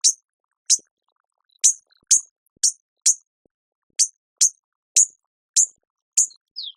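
Hummingbird giving short, sharp, high-pitched chip calls, about two a second and slightly irregular, with a brief falling whistle near the end.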